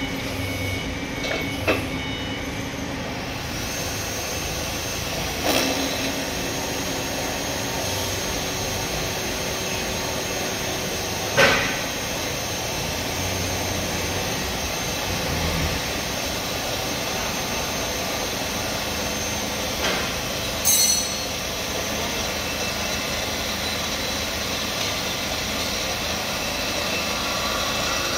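Cordless 3-in-1 impact wrench/driver working on a bolt in a steel machine: a steady mechanical noise broken by a few sharp knocks, the loudest about midway.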